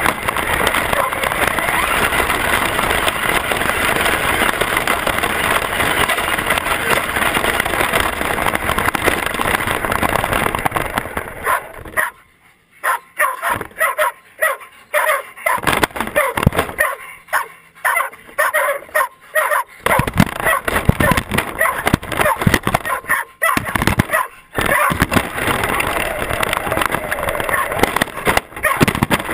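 Traxxas radio-controlled truck driving over grass, heard from a camera mounted on it: its running gear and wind on the microphone make a loud, dense noise. About twelve seconds in the noise drops out and comes back in short spurts as the truck stops and starts, then runs steadily again from about twenty seconds in.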